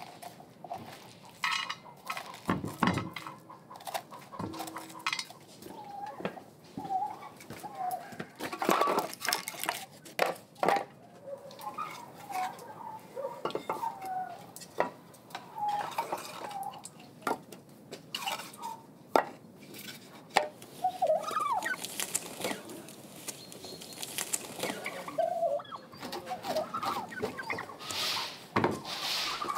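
Domestic fowl calling in short clucks, over frequent clicks and knocks of kitchen utensils and cookware being handled.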